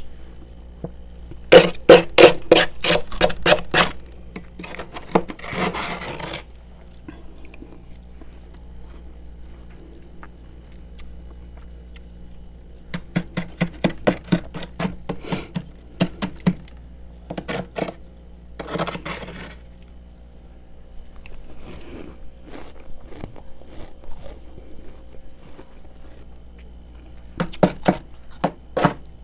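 Frost being scraped from a freezer in bursts of quick, sharp strokes, several a second, with a couple of longer continuous scrapes between the bursts.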